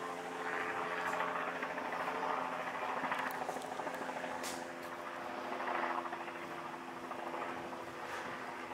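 Steady low mechanical hum, with a rushing noise that swells and fades several times.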